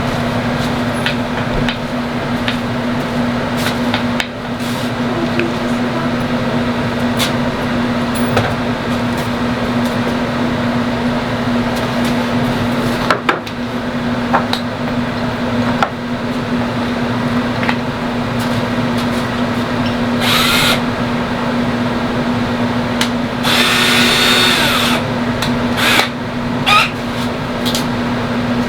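Power tool cutting a notch into half-inch PVC sheet to make room for a heat-panel cord, over a steady hum with scattered clicks. Two louder, sharper stretches of cutting come in the last third.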